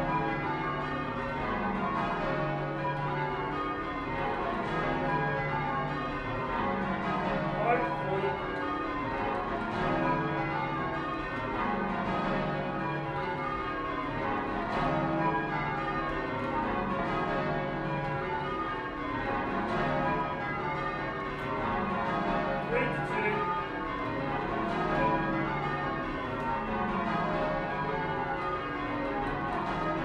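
The ring of twelve church bells at St Sepulchre-without-Newgate, tenor 28-2-16 cwt in C sharp, ringing changes. The bells strike in steady rows, each a run descending in pitch, repeating about every two and a half seconds.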